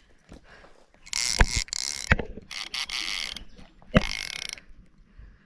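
A fishing reel ratcheting in three short bursts of about a second each, with a few sharp knocks in between, as a hooked common carp is played in.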